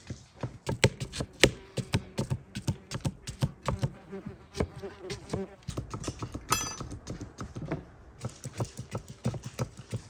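Kitchen knives chopping firm peeled watermelon rind on wooden cutting boards: a quick, irregular run of sharp taps as the blades cut through and strike the boards.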